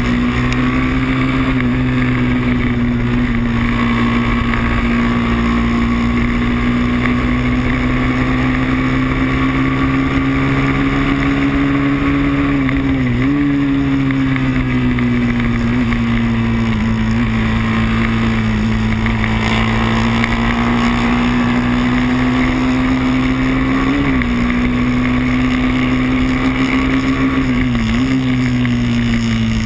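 Moto3 race bike's engine heard from an onboard camera, running hard at high revs with a steady high note. The pitch dips briefly and recovers three times, once about halfway through and twice near the end.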